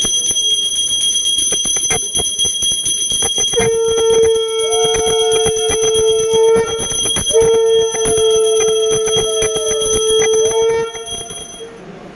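A brass puja hand bell (ghanta) rung rapidly and without pause, its high ringing steady throughout. A conch shell (shankha) is blown over it in two long blasts, each starting with a brief upward bend, from about three and a half seconds in to about eleven. The sound then drops away sharply.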